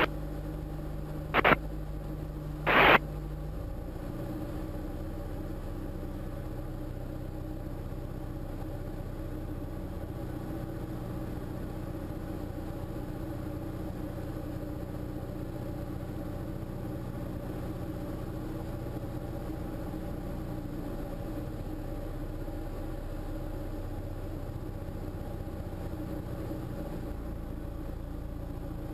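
Single-engine Diamond light aircraft's piston engine and propeller droning steadily, heard from inside the cockpit on final approach. Two short loud bursts of noise come in the first three seconds, and the engine note changes about four seconds in.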